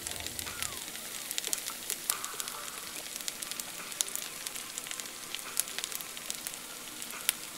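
Tempeh burger patty frying in hot vegetable oil in a pan: a steady sizzle with many small scattered pops and crackles.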